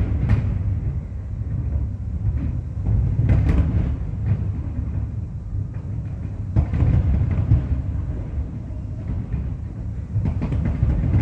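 Aerial firework shells bursting in a continuous rolling rumble, with sharper bangs standing out about 3.5 and 6.5 seconds in and a cluster of them near the end.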